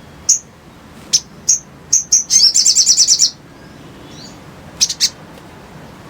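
Little spiderhunter (sogok ontong) calling: a series of sharp, high chips, then a rapid chattering trill of about a second, then a quick pair of chips.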